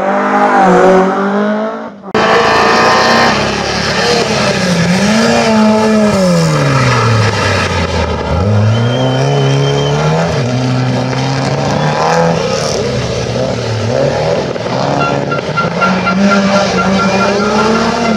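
Rally car engines at full throttle on a stage. First a BMW E30 M3 accelerates hard, its pitch climbing. After a sudden cut about two seconds in, another rally car's engine revs high, drops sharply in pitch as it lifts off for a corner, then climbs again through the gears.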